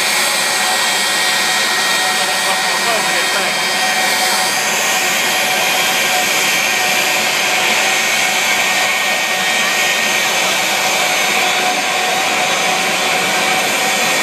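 Jet car's turbine engine running steadily: a loud rushing noise with a steady whine that grows brighter about four and a half seconds in.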